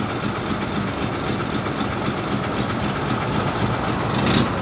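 Steady rumble of motor-vehicle engine and road noise, with one short sharp click near the end.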